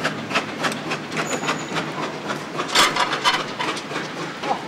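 Irregular clattering and knocking, several knocks a second, with a louder cluster a little before the three-second mark.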